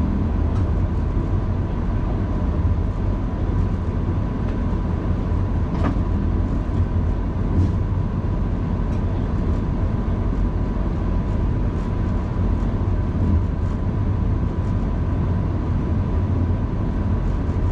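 Diesel locomotive underway, heard from inside its cab: a steady low rumble with a thin constant whine and scattered light clicks.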